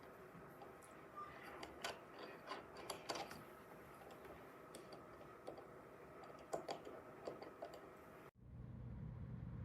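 Scattered light clicks and taps of small metal gear being handled, over a faint steady background. Near the end the sound cuts off abruptly, giving way to a low steady hum.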